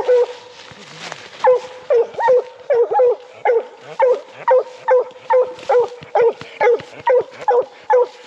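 Coonhound barking at the foot of a tree, a steady run of short barks about two a second: a hound treeing, calling that she has her quarry up the tree.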